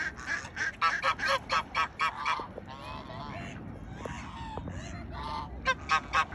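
Waterfowl calling in fast runs of short, honking calls, about five a second. The calls drop to a few quieter gliding calls in the middle and pick up again near the end.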